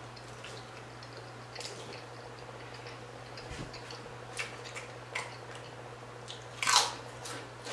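Close-up eating sounds: soft wet chewing with small mouth clicks, then a crisp potato chip crunching near the end. A steady low electrical hum lies underneath.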